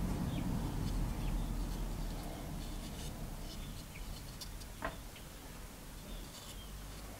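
Wind buffeting the microphone, dying away, with small birds chirping in short high notes throughout and one sharp click a little before five seconds in.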